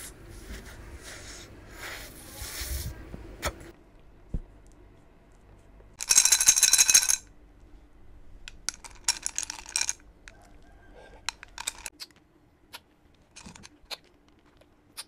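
Crunching and chewing of a bitten chocolate sandwich cookie, then a loud rattle of about a second, about six seconds in, as chocolate pieces are shaken in a clear cup. After that come scattered light clicks as a spoon works among the pieces in the cup.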